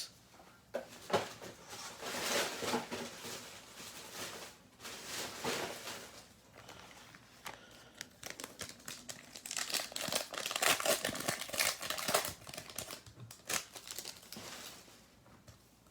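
Foil trading card packs being torn open and crinkled by hand, in irregular spurts of rustling and crackling that are busiest partway through.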